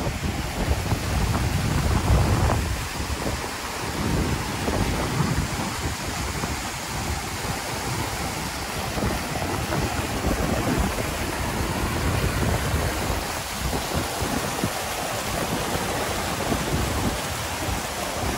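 Water rushing steadily over the top of a waterfall, with wind buffeting the microphone in irregular gusts.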